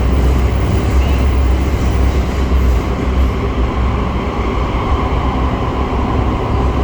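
Interior running noise of a driverless MRT Putrajaya Line train: a steady low rumble with the faint whine of its traction motors, easing slightly as the train nears the next station.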